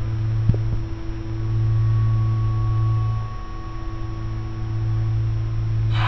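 Sustained low tones of a film soundtrack's score, a held chord or drone, playing through a hall's speakers, with one short thump about half a second in.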